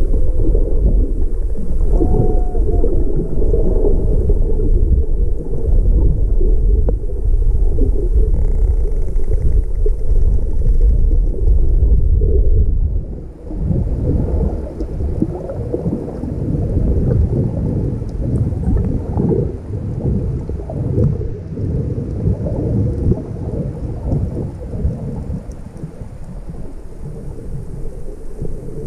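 Muffled low rumble and rush of water on an underwater camera, heavy and steady at first, then a little lighter and choppier after about halfway through.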